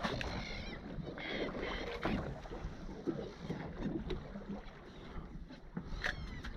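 Steady ambient noise aboard a fishing boat offshore: water moving against the hull and wind on the microphone, with a few faint short sounds over it.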